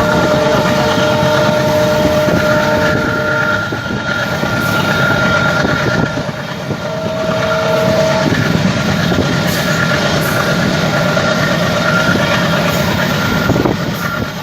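Passenger train hauled by a WDG3A ALCO diesel locomotive running past, with steady wheel clatter on the rails. A long two-note horn blast sounds for the first three seconds or so, and a shorter blast comes about seven seconds in.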